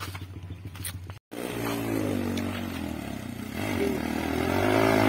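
Footsteps on a dirt road for about a second, then, after a sudden break, a motorcycle engine running and revving, growing louder near the end.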